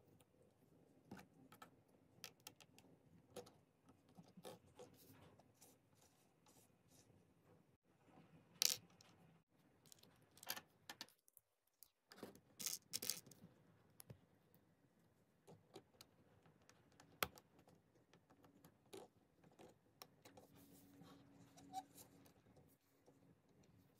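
Faint handling sounds of LEGO minifigure parts: scattered small plastic clicks and soft rustles as pieces are fitted, with a few sharper clicks about nine, thirteen and seventeen seconds in.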